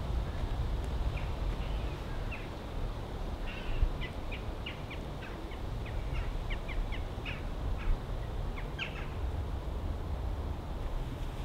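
Small birds chirping in woodland: many short, high calls scattered over several seconds, busiest in the middle, over a steady low rumble.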